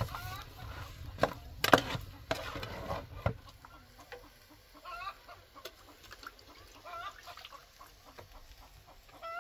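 Chickens clucking quietly now and then, in short calls every couple of seconds. In the first three seconds, several sharp knocks from metal cooking pots being handled on a wood fire.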